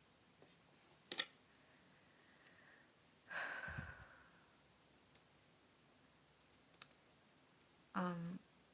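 A quiet pause between sentences: a pair of sharp clicks about a second in, a breath or sniff a little after three seconds, a few faint clicks later, and a brief voiced sound near the end.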